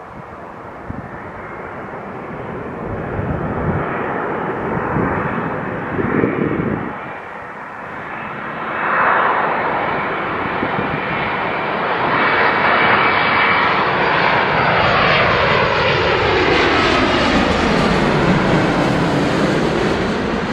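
Boeing 787 airliner on final approach passing low overhead, its jet engines growing louder as it nears. As it goes over, the engine whine falls steadily in pitch.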